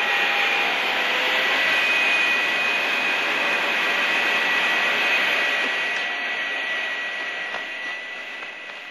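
Aircraft engine running steadily with a high whine, fading gradually over the last few seconds.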